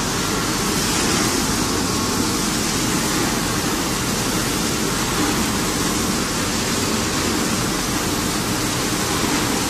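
Organic fertilizer granulator production line running: a steady, loud, even machinery noise with no clear rhythm.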